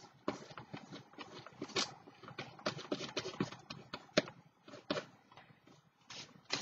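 Paper napkin pieces being handled and glued down with a glue stick: a run of irregular rustles, scrapes and light taps, densest in the middle, with a sharper tap about four seconds in.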